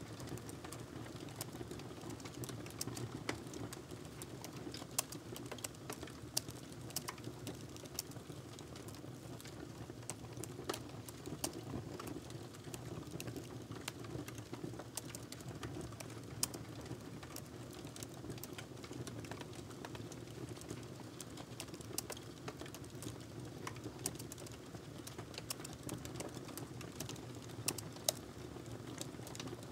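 Typing on a laptop keyboard: quick, irregular key clicks in continuous runs, over a steady low background hum.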